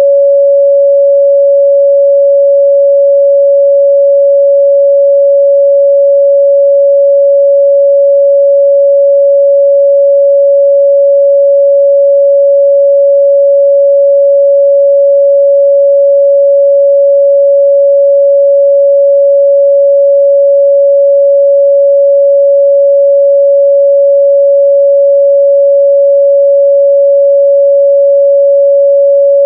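A pure 561 Hz sine-wave test tone, held perfectly steady and loud, used for checking the midrange response of speakers and headphones.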